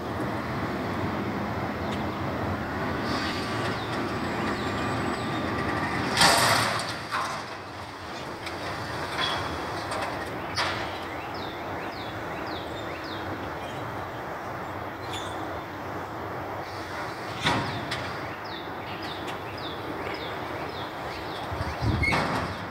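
Heil Half Pack Odyssey front-loader garbage truck running as its hydraulic forks pick up a dumpster and raise it over the cab, with sharp metal bangs from the dumpster, the loudest about six seconds in and others later.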